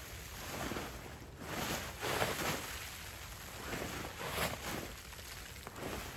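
Rustling and swishing of camping gear and dry leaf litter as a camper moves about packing up, in uneven swishes every second or so.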